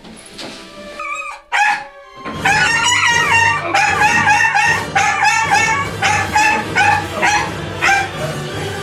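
A small dog barking at a cat, setting off about two seconds in and then barking and yapping in a rapid, high-pitched string, with background music underneath.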